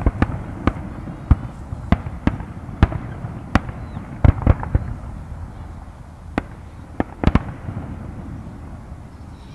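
Aerial fireworks shells bursting overhead: a string of sharp bangs at irregular intervals over a low rumble. The bangs come thickest around four to five seconds in and grow sparser near the end.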